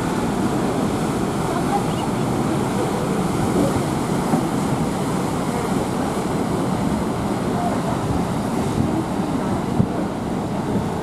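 Steady rush of wind and water aboard a moving harbour cruise boat, with wind buffeting the microphone.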